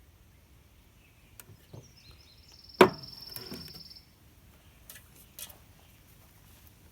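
A single sharp knock, the loudest thing here, with a few faint clicks around it and a steady high-pitched buzz lasting about two seconds.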